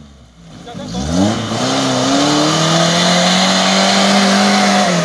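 Suzuki Jimny off-roader's engine revving up about a second in and then held at high revs as it pushes through deep mud, with a rush of noise from the churning tyres and mud.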